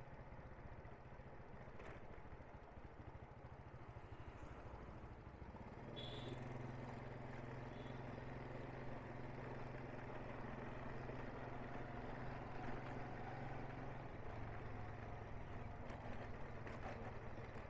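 A small motorbike engine runs steadily with road noise while riding, and the engine note grows louder about six seconds in.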